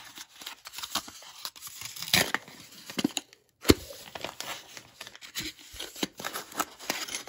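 Kraft paper hook packet being handled and torn open: paper crinkling and tearing with many small clicks and taps, and one sharp knock about halfway through.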